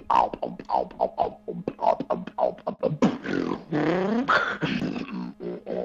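Beatboxing: a fast run of short percussive mouth sounds, then, about three seconds in, roughly two seconds of drawn-out vocal sounds gliding up and down in pitch, before the quick beat comes back near the end.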